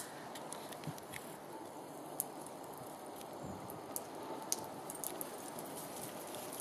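Quiet outdoor background hiss with a few faint, sharp clicks scattered through it.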